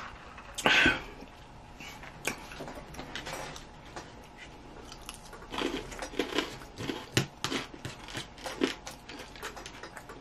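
Close-up eating sounds: a short, loud sip through a straw just under a second in, then chewing and crunching of salad with scattered clicks of a plastic fork against a paper plate, busiest in the second half.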